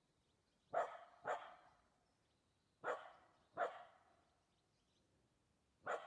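A dog barking five times in short pairs, each bark trailing off in an echo.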